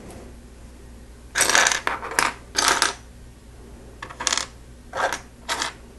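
Loose plastic Lego pieces clattering in several short bursts as a hand rakes and sifts through a pile of parts.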